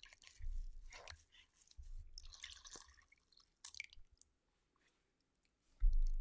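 Wet sponge and clay rib handled in water: soft squishes and drips in short bursts, then a few small clicks. A low thump near the end is the loudest sound.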